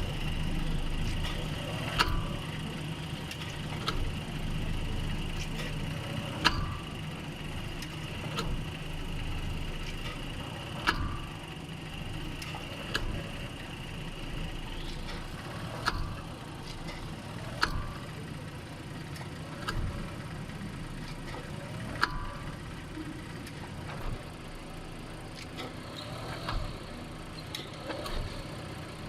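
Car engine idling with a sharp clunk about every two seconds as drive is taken up and released in gear. The clunks come from a failed inner tripod joint on the left-hand driveshaft, with one or more of its bearings gone. A steady high whine stops about halfway through.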